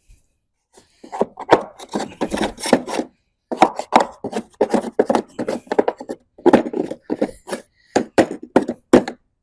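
Rapid, irregular scrubbing and scraping strokes on the lawnmower where the blade was taken off, cleaning off dirt, in short runs broken by brief pauses.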